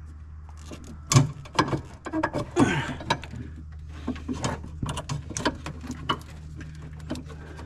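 Irregular clicks, knocks and rattles of a dashboard part in a Jeep Wrangler TJ being tugged and pried at by hand, the busiest stretch between about one and three seconds in; the part doesn't pop free because something behind it is still connected.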